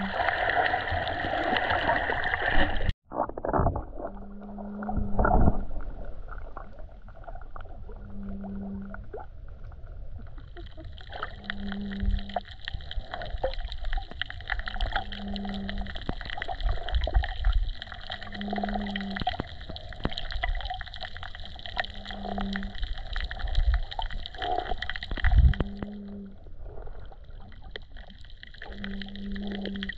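Underwater sound while snorkeling: steady water noise with a few dull knocks, the loudest about 25 seconds in, and a short low hum that repeats about every three and a half seconds.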